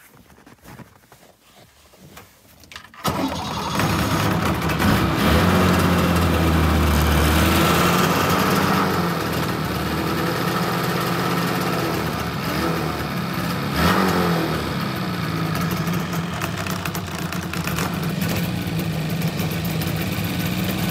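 1982 Ski-Doo Elite snowmobile's two-stroke engine catching on a jump start about three seconds in, after its battery froze. It revs for a few seconds, blips once more, then settles into steady running.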